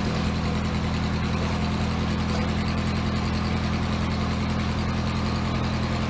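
Engine running steadily at idle, an even low drone that does not change.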